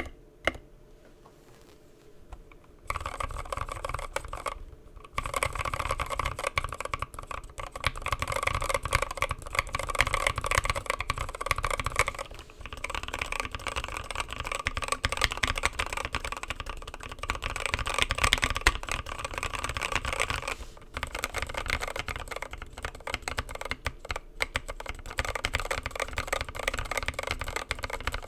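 Fast typing on a 65% mechanical keyboard with an aluminium plate and Gateron Milky Yellow linear switches, lubed with 205g0 and fitted with films. A few separate keystrokes and a pause of about two seconds come first; then a dense run of key clacks follows, with a few short breaks.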